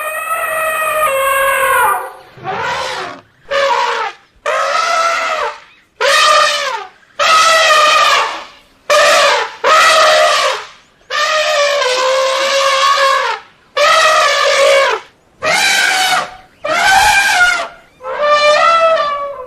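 Elephants trumpeting: a dozen or so loud, brassy calls in quick succession, each about a second long, some bending up and then down in pitch.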